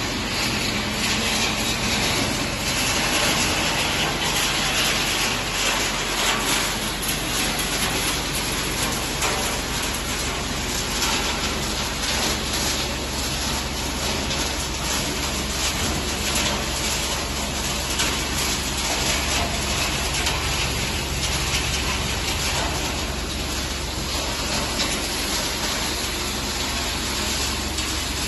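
Waste circuit board (PCB) recycling line running: a steady, dense mechanical noise with a low hum underneath.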